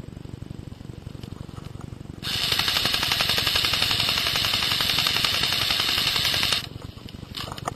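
CYMA AK74 airsoft electric gun firing one long full-auto burst of about four seconds, a fast, even rattle of shots. A few brief clicks follow near the end.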